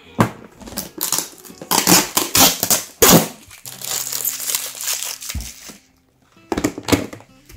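Crinkling and rustling of clear plastic bags and a plastic storage box being handled. It is heaviest in the first three and a half seconds, and a short burst comes again near the end.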